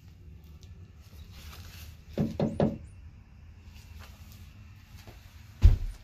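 Knocks on the wooden boards of a small playhouse as someone moves about inside it: three quick knocks about two seconds in, then one heavier, deeper thump near the end.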